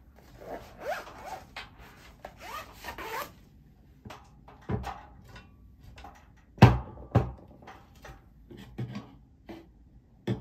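Handling noise on a desk: about three seconds of rubbing and sliding with short squeaks, then a string of separate knocks and clacks as an aluminium laptop stand is pressed, adjusted and set on the desktop. The loudest are two knocks about half a second apart, just past the middle.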